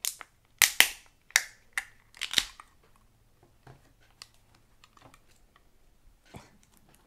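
Wet cat food packaging being handled and opened: a quick run of sharp clicks and crackles over the first two and a half seconds, then a few faint ticks.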